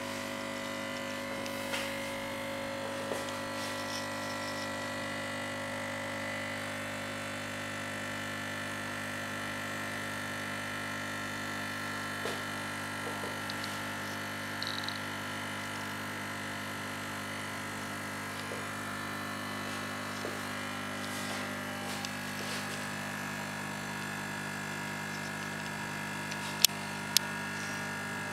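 Elektra Micro Casa Semiautomatica espresso machine's vibratory pump buzzing steadily while a double espresso is brewing, with a couple of light clicks near the end.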